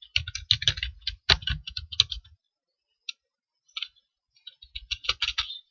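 Computer keyboard keystrokes: a quick run of typing clicks, a pause with a few single taps, then another quick run near the end.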